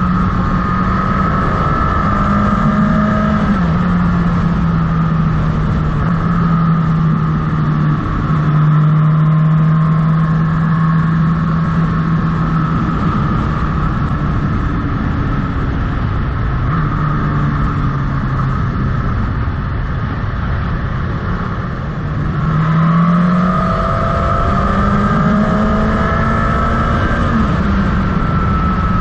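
Motorcycle engine running under way on a winding road, over a steady rush of wind. Its note shifts down in pitch a few times, then climbs again a little past twenty seconds in as the bike accelerates.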